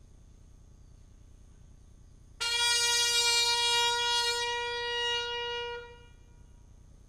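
One trumpet note held at a single pitch for about three and a half seconds. It starts abruptly about two seconds in and stops short. It is sounded at the elevation of the chalice after the consecration.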